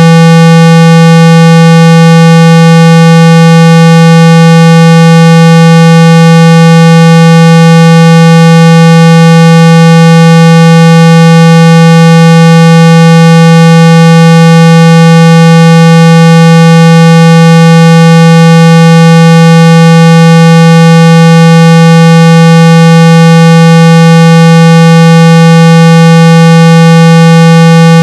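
Steady 165 Hz test tone, very loud and unchanging, with weaker overtones above it. It is played through a phone speaker to shake water and dust out of it.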